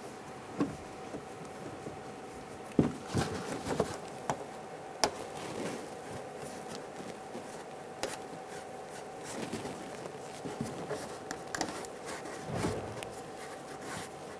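Plastic inner fender liner being worked into place by hand: scattered clicks, knocks and scraping of plastic, the sharpest knocks about three and five seconds in, over a steady faint hum.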